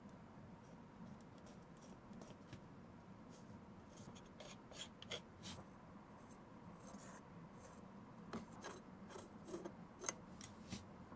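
Faint scraping and scattered light clicks of a small metal spatula spreading leather filler paste over the worn leather of a sneaker heel, the ticks coming more often in the second half.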